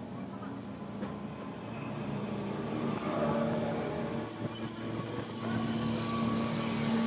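An engine running steadily nearby, with a constant low hum that grows louder about three seconds in.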